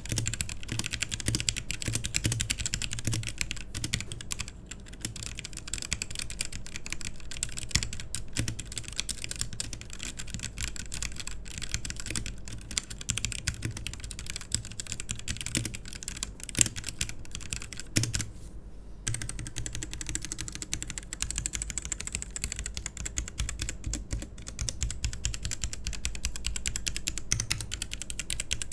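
Typing on an E-Yooso Z11 60% mechanical keyboard with Huano red linear switches: a rapid, continuous clatter of keystrokes, with one short pause about two-thirds of the way through.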